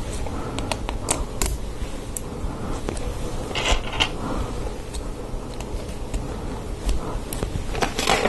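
Small clicks and rattles of plastic LEGO Technic pieces being handled and pressed together, with a short clatter of loose parts being picked through a little under four seconds in.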